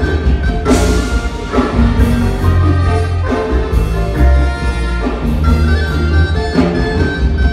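Live danzón played by a marimba orchestra: marimba with saxophones, brass and Latin percussion over a steady pulsing bass.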